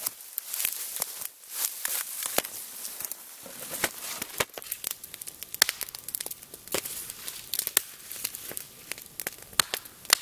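A few hatchet strokes into a snow-covered log in the first couple of seconds, then a wood campfire crackling and popping with frequent irregular sharp snaps.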